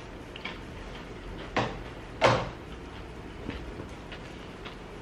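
Doritos tortilla chips being chewed: a few short crunches, the two loudest close together near the middle.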